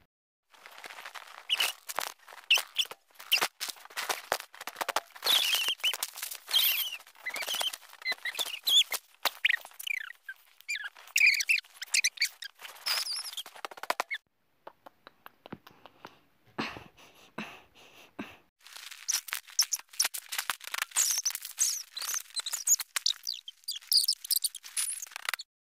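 Voices and room sounds from a home video played back at eight times speed, turned into a rapid, high-pitched squeaky chatter. It drops quieter for a few seconds past the middle.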